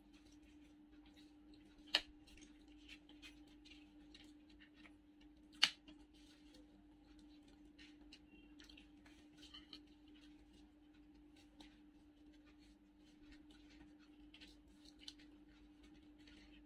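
Quiet eating and table-handling sounds: soft scattered ticks and rustles, with two sharp clicks, the first about two seconds in and the second about three and a half seconds later, over a steady low hum.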